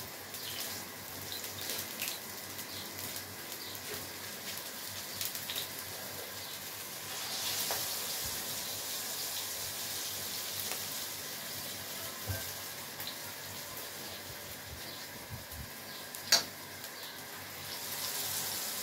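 Gram-flour-battered potato cutlets sizzling in shallow oil in an iron pan. The hiss grows louder around the middle and again near the end, and there is one sharp tap about sixteen seconds in.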